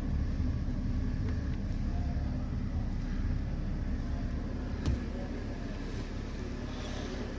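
BMW E60/E61 car running with a steady low rumble, and a single sharp knock about five seconds in.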